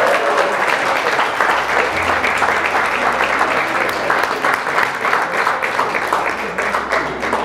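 A roomful of people applauding: dense, steady clapping that eases off slightly near the end.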